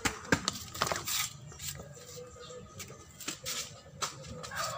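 Scattered clicks and rustles of a handheld phone being moved about while filming.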